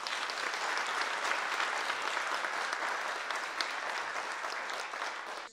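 Audience applauding: steady, dense clapping that cuts off suddenly at the end.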